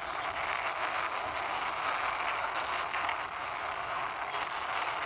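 Plastic wheels of a toy backhoe truck rolling steadily across the ground as it is pushed by hand.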